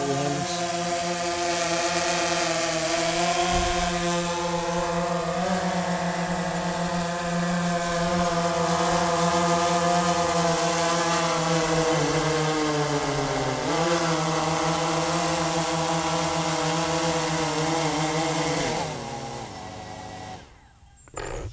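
DJI Phantom 3 Professional quadcopter's four propellers buzzing steadily as it hovers a few feet up and settles onto grass, the pitch shifting a little as it moves. Near the end the motors wind down and stop once it has landed.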